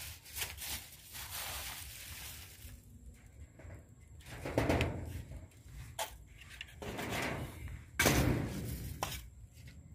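Handling noise at a wooden-framed wire-mesh bird cage: scattered knocks and rattles of the cage and its door, with a louder clatter about eight seconds in.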